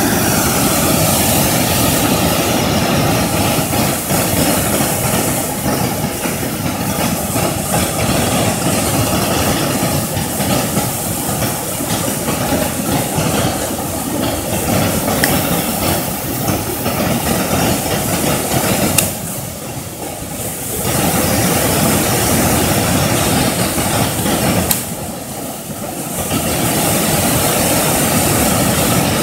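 Steady loud rushing of flowing river water, with two brief dips in the second half.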